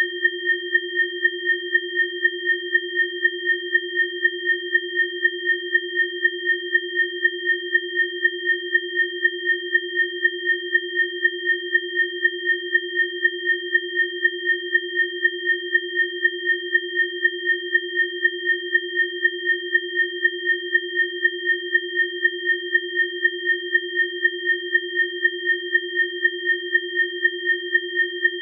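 Electronically generated sine tones, one low and two high, held at steady pitches and pulsing in a fast, even beat: a bioresonance 'biofrequency' tone track.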